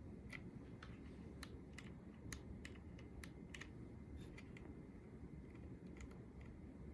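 Anne Pro II 60% mechanical keyboard keys clicking as they are pressed: a faint, irregular run of sharp clicks, about two or three a second.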